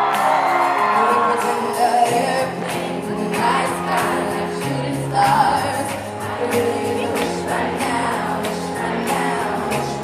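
Live pop music: acoustic guitars and held chords under a woman's singing voice with backing vocals, the crowd shouting and singing along.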